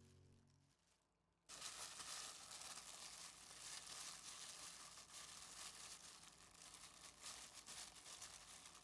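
Crinkling of a thin disposable plastic glove and the crunch of dry shredded coconut mixture as a hand squeezes and rolls it into a ball, starting about a second and a half in after a brief hush.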